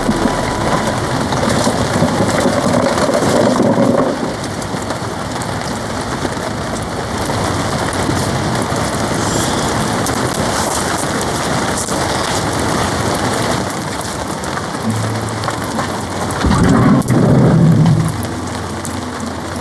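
Heavy rain drumming steadily on a TC (polycotton) tarp. A louder low rumble rises over it near the end.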